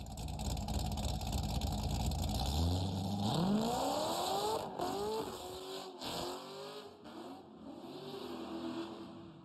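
Corvette V8 exhaust with a deep idle rumble, then revved in a long rising sweep about three seconds in, followed by a couple of short blips before it settles back to an uneven, lumpy note.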